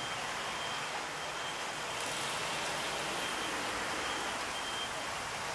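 City street traffic noise, a steady rushing hum of passing vehicles, with a thin high-pitched beep that sounds now and then.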